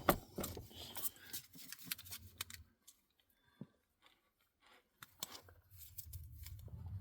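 Faint scattered clicks and rustles of hand tools being handled while hunting for the right size socket for the drain plug, with a near-silent stretch of about two seconds in the middle.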